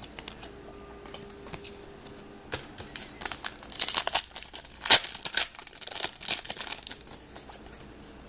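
Crinkling and rustling of a hockey card pack's foil wrapper and cards being handled, in irregular bursts after a quiet start, with one sharp snap about five seconds in.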